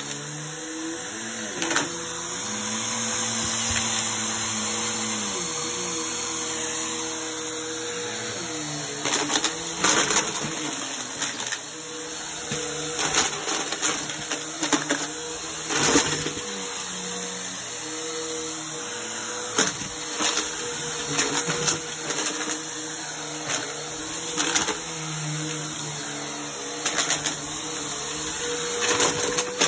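Upright bagless vacuum cleaner running on carpet, its motor tone shifting in pitch as it is pushed. Frequent sharp clattering cracks come as it sucks up plastic bottle caps, buttons and coins.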